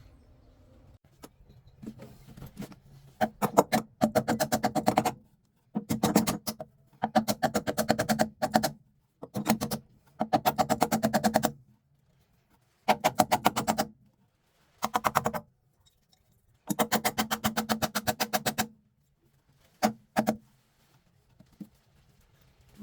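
Electric saw cutting a fiberglass cover, run in about nine short buzzing bursts of one to two seconds each, with pauses between them.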